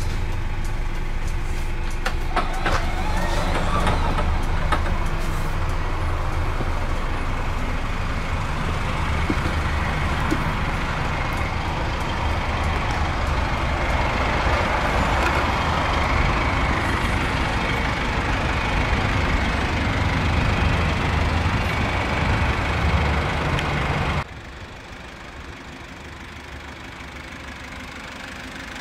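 2.8-litre turbocharged inline-four diesel of a GAZelle Next bus idling, heard from around the outside of the vehicle, with a few light clicks near the start. About 24 seconds in the sound drops suddenly to a quieter, steadier idle.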